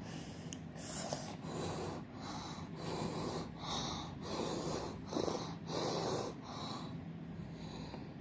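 A person breathing heavily and fast, about ten ragged breaths in quick succession over a faint steady low hum.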